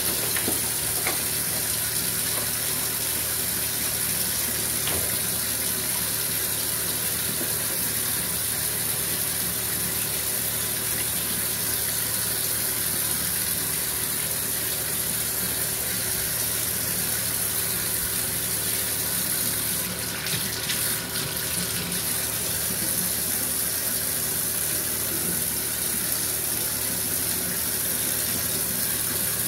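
Handheld shower running steadily, spraying water into a bathtub and over a small dog being rinsed: an even, unbroken hiss of falling water.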